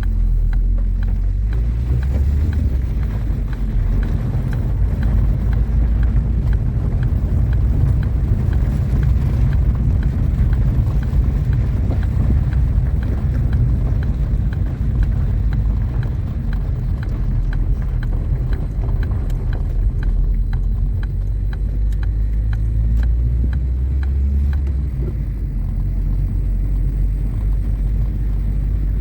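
Car driving along, a loud, steady low rumble of engine and road noise.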